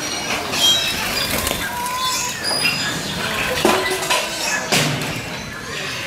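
Aviary birds chirping: many short, high calls overlapping, with a couple of sharp knocks near the middle.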